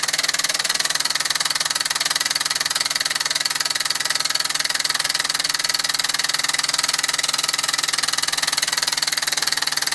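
1949 Mamod SE2 toy steam engine, with its superheated steam feed, running steadily under steam: a fast, even stream of exhaust beats over a hiss of steam.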